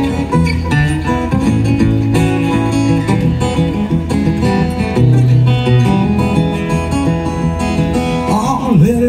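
Live acoustic guitar picking a country-blues tune. A man's singing voice comes in near the end.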